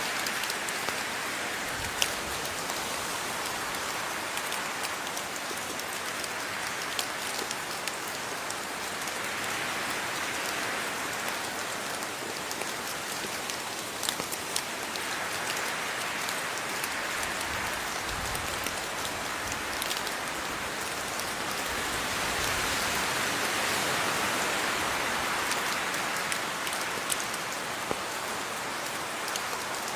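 Steady rain falling, with sharp taps of single drops hitting a nearby surface scattered throughout; the rain swells and eases every few seconds.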